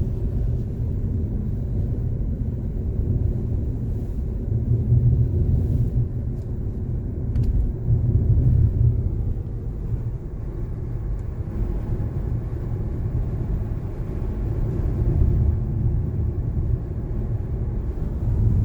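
Steady low road rumble of a car in motion, as heard inside the cabin, swelling and easing slightly.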